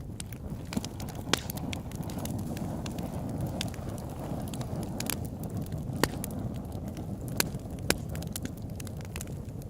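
Campfire burning with a steady low rush of flames and irregular sharp wood crackles and pops, a few louder snaps standing out.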